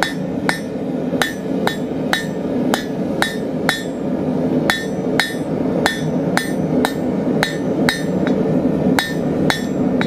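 Blacksmith's hammer striking hot 1/2-inch square steel bar at the edge of an anvil, drawing out a point. Steady blows come about two a second, each with a short metallic ring, with one brief pause about four seconds in.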